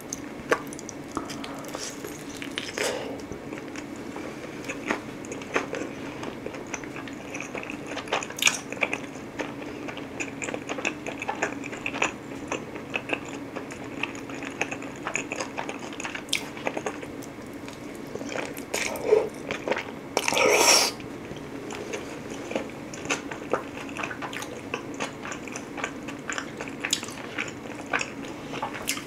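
Close-miked biting and chewing of pizza crust dipped in garlic dipping sauce: wet mouth sounds and many small crunchy clicks. A louder, noisier sound lasting about a second comes about twenty seconds in.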